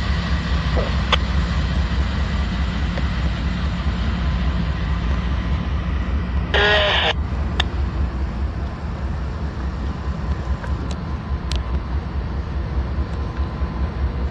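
Norfolk Southern diesel locomotives idling with a steady low rumble. A short, higher-pitched tone sounds for about half a second near the middle, and a few sharp clicks come and go.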